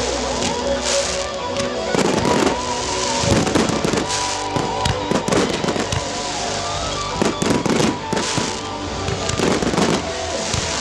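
Firework shells bursting one after another, about once a second, with crackling, while music plays along.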